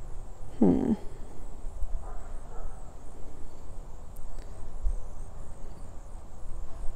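Outdoor ambience: a steady low rumble of wind on the microphone and a faint, steady chirring of insects. A short pitched animal call comes about a second in, with a fainter one a second or so later.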